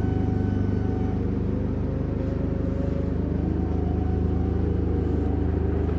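Forklift engine running steadily, its pitch rising a little about two seconds in.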